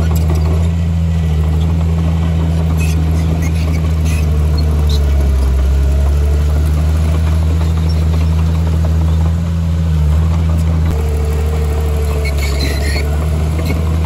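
Heavy construction machine's diesel engine running steadily with a deep drone, with a few short high squeaks around three seconds, four seconds and again near the end.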